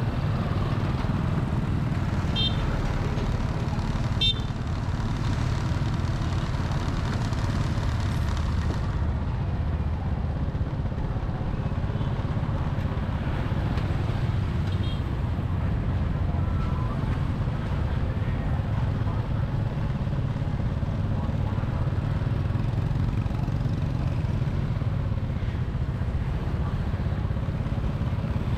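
Steady noise of a vehicle driving through road traffic, mostly a low rumble, with a few short high beeps or toots in the first few seconds and again midway.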